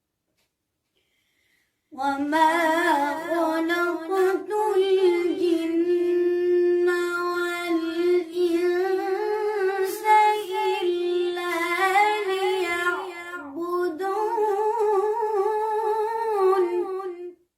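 A single voice singing unaccompanied, with long held notes ornamented by a wavering vibrato. It starts about two seconds in and stops just before the end.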